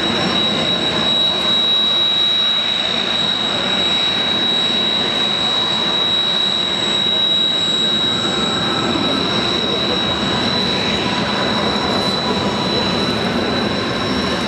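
Twin turbofan engines of Kawasaki T-4 jet trainers running steadily on the ground: a high, steady whine over a broad rushing noise, with no rise in power.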